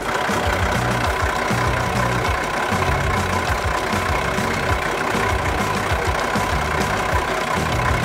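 Truck engine sound effect, running steadily at idle.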